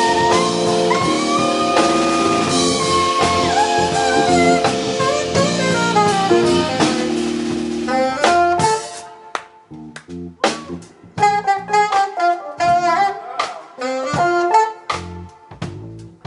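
Live jazz quartet of saxophone, keyboards, electric bass and drums playing together with the saxophone on top. About eight seconds in, the dense playing breaks into short stabbed hits with brief gaps between them.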